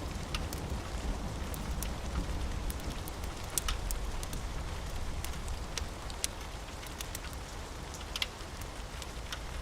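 Steady rain with a low rumble underneath, and irregular sharp crackles and pops from a wood fire in a fireplace.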